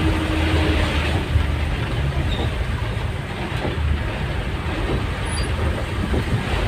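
Strong wind blowing hard across a phone's microphone: a steady deep rumble of buffeting under an even rushing noise.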